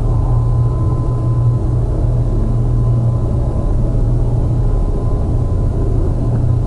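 Steady, dense low drone with a thin, steady high tone held above it, from an experimental sound collage of recordings processed through effects pedals and digital manipulation.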